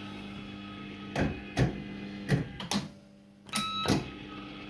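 Firecracker fruit machine playing: a steady hum under a run of sharp clunks as the reels spin and stop, with short electronic beeps a little over halfway through.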